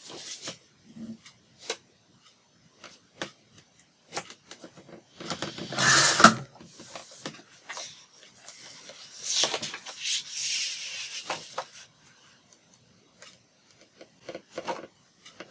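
Paper being handled and trimmed for a junk journal page. Scattered light clicks and taps, with a rasping, rustling stretch about six seconds in and another around ten seconds.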